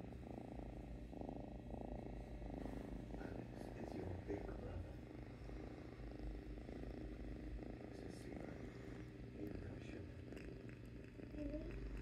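Young tabby kitten purring steadily as it is stroked.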